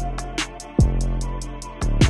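Background music with a beat: a deep kick drum that falls in pitch about once a second, under fast ticking percussion and sustained notes.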